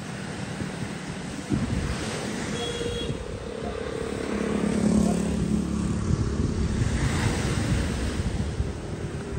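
A motorbike passing on the road, its engine rising to a peak about halfway through and then fading, over wind buffeting the microphone and the wash of surf.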